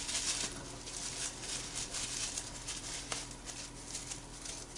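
Faint rustling and light ticking of an alarm panel's cell card being handled, a few small clicks standing out, over a steady low hum.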